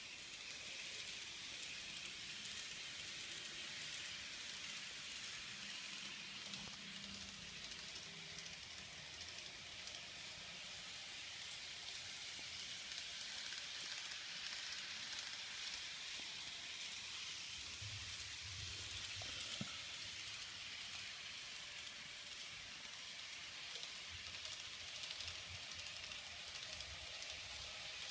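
Kato N-scale model train running on plastic Unitrack: a faint, steady rolling hiss of the small wheels on the rails, with a low motor hum coming and going.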